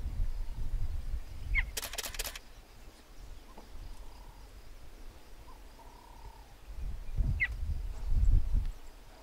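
Cheetah chirping: two short, high, bird-like chirps about six seconds apart. A quick rattle of sharp clicks follows the first chirp, and bursts of low rumble are the loudest sound near the start and near the end.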